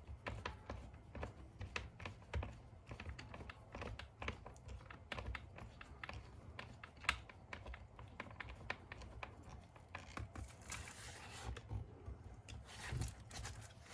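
Small clicks and rattles of plastic and metal parts being handled as the battery tray and screws are fitted back into an RC truck's chassis, with two short scraping rustles near the end.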